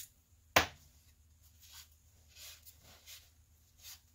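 Blue paper shop towel rustling and crinkling in the hands in several short bouts while wiping engine parts, with one sharp click about half a second in.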